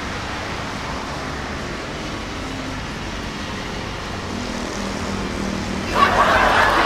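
Steady road traffic noise from cars passing on a busy multi-lane road, growing markedly louder about six seconds in.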